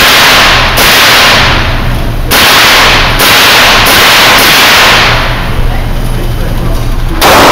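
M16 rifle firing single 5.56 mm shots, about seven in all, at an uneven pace with a pause of about two seconds before the last. Each shot is a sharp crack that overloads the recording and rings on in the echo of the indoor range.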